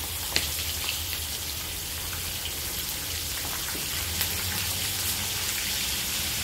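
Salted beef (carne oreada) frying in hot oil in a skillet: a steady sizzle with scattered crackles and a sharp click about half a second in.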